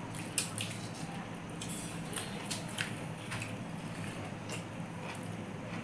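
Hand-eating sounds: fingers mixing rice on steel plates and mouths chewing, making a string of small wet clicks and smacks over a steady low hum.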